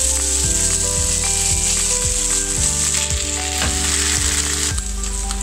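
Precooked choclo (large white corn kernels) sizzling steadily as it fries in hot oil in a nonstick frying pan. Background music with steady notes and a regular beat plays underneath.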